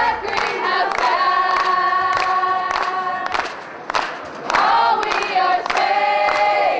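A group of voices singing together in long, held notes, with several short sharp sounds cutting through.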